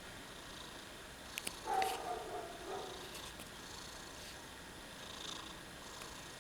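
Domestic cat snoring in its sleep: soft breathy snores at intervals, with one louder, pitched snore about two seconds in, just after two small clicks.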